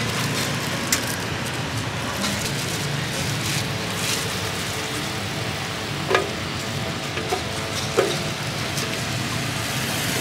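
A knife slicing pineapple into a plastic blender jar, with three sharp knocks of blade and fruit against the jar, one about a second in and two in the second half. Under it runs a steady hiss and low hum of street noise.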